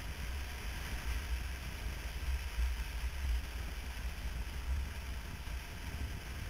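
Wind rushing over the microphone of a motorcycle at riding speed: a steady, uneven low rumble with a hiss of road and air noise on top.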